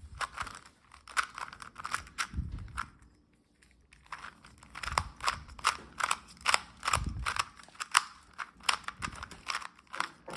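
A Rubik's cube being turned quickly by hand: a fast, irregular run of plastic clicks as the layers snap round, pausing for about a second around three seconds in, with a couple of dull knocks from the cube being handled.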